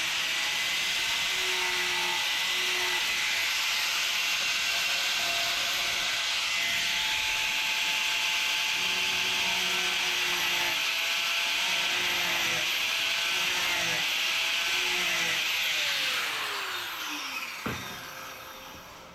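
Angle grinder grinding sheet-steel welds: a steady, loud hissing grind. About sixteen seconds in it is switched off and winds down with a falling whine.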